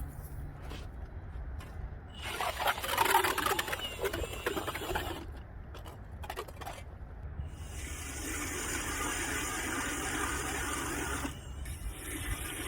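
Ice auger drilling a new fishing hole through lake ice, with a steady motor and scraping, slushy churning that comes and goes in spells.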